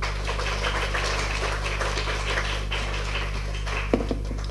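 Audience applauding, a dense patter of clapping that thins out and dies away near the end, over a steady low electrical hum.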